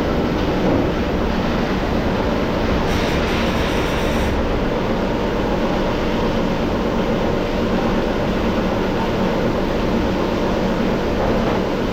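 Factory machinery running steadily: a continuous mechanical rumble with a low hum. A brief hiss sits on top of it about three seconds in.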